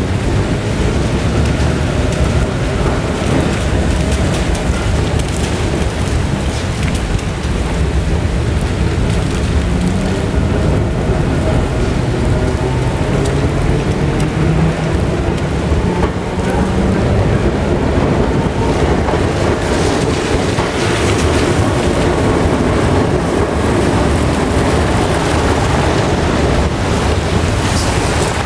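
Peter Witt tram running along wet street track, heard from on board: a loud, steady low rumble with rain noise, and a faint whine that rises and falls.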